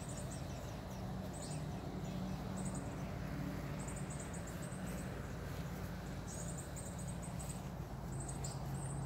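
Outdoor ambience: a steady low hum underneath, with short trills of high, rapid chirps recurring every second or two.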